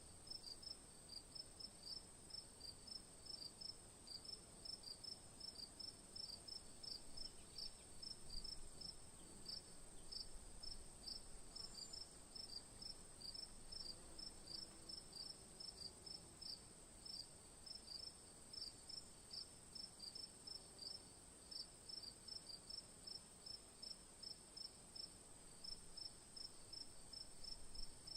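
A cricket chirping, short high chirps repeating at an even pace of about two to three a second, over a faint steady hiss.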